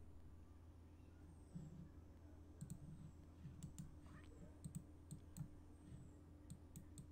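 Faint computer mouse clicks, quick and scattered, many in close pairs, starting about two and a half seconds in: right-clicking and clicking through a save-image dialog.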